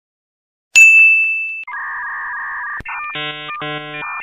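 A series of synthetic sound-effect tones. About three-quarters of a second in, a bright struck ding fades over about a second. A steady two-note electronic beep runs for about a second, then a click, then two pulses of buzzy electronic tones that switch pitch.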